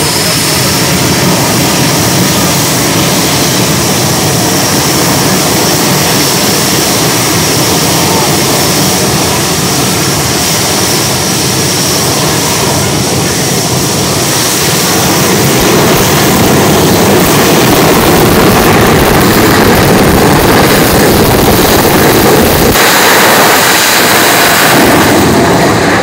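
Aftershock jet truck's jet engine running with its afterburner lit, a loud rush of noise with a steady high whine over it, growing louder about two-thirds of the way through.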